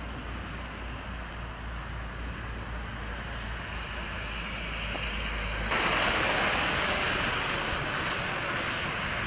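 Wind rushing over the microphone with a steady low hum of vehicles behind it; about six seconds in, the rushing hiss jumps abruptly louder.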